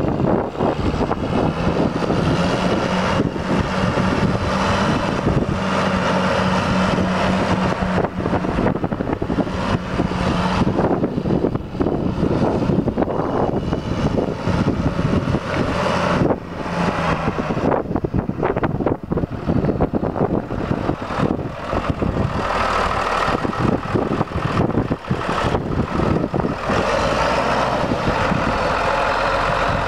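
2007 John Deere 6603 tractor's diesel engine running as the tractor drives and turns, with a steady engine note through the first half. It is idling near the end.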